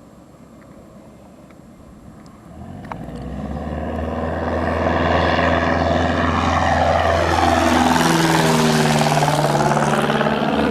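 A Cessna 172's piston engine and propeller running at high power, growing louder as the plane approaches, then passing close by with the pitch dropping. The engine is at full power for a go-around off the runway.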